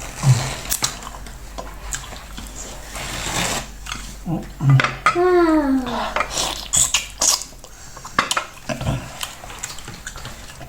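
Cutlery and dishes clinking in scattered sharp knocks and clicks during a meal, with a single drawn-out, falling "wow" from a voice about five seconds in.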